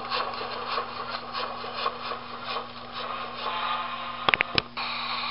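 Model freight train rolling past on layout track, its wheels clicking rhythmically over the rail joints under a steady electrical hum, with a quick run of sharp clicks about four seconds in.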